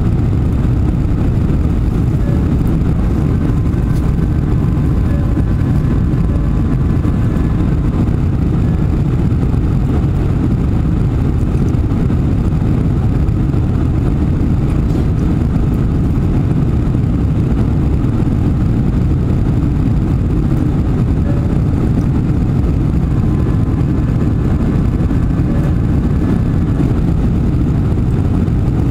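Steady cabin noise inside a Boeing 747-400 climbing after takeoff: an even, deep rush from its four jet engines and the air streaming past the fuselage, with faint whining tones that come and go.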